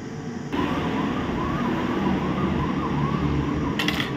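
A siren wailing in quick rise-and-fall cycles, about three a second, that starts about half a second in over a steady hiss. A brief rattle or click comes near the end.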